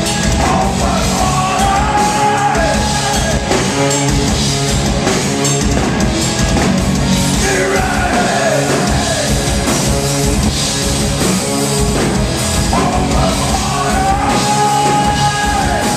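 Live rock band playing loud, with electric guitars and a drum kit under a singer who holds long, sliding sung notes in three phrases.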